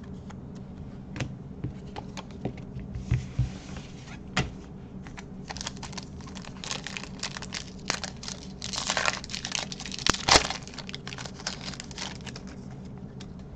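Pokémon booster pack foil wrapper and plastic card sleeve being handled: scattered crinkles and clicks, then from about halfway through a longer stretch of crinkling and tearing as the foil pack is torn open, loudest near the end.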